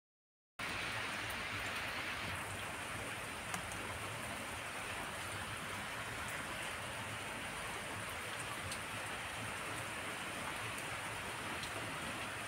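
Steady rain falling onto a waterlogged dirt yard, an even hiss with a few sharper drop clicks scattered through it.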